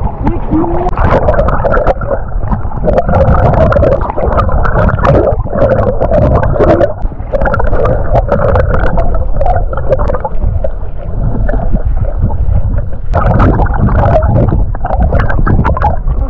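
Seawater sloshing and gurgling around a camera at the waterline as it dips under the surface: a loud, muffled churning full of bubbly clicks, with a dog paddling close by.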